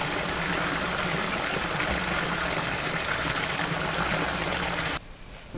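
A small stream of water pouring steadily down a muddy bank into a pool, a continuous rushing splash that cuts off abruptly about five seconds in.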